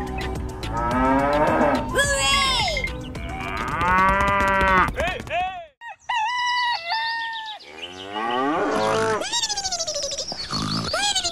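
Cow mooing in several long, drawn-out calls that rise and fall in pitch. After a short break about halfway through, other cartoon-style sound effects take over, with stepping tones and then a fast pulsing, falling sound.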